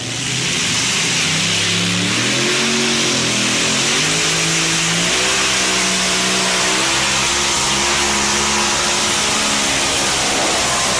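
Pulling tractor's engine running hard at full throttle, loud and steady, its pitch rising and falling as the revs change.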